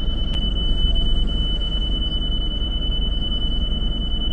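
Vehicle driving at night with a steady low engine and road rumble, under a thin high-pitched whine that holds one pitch throughout.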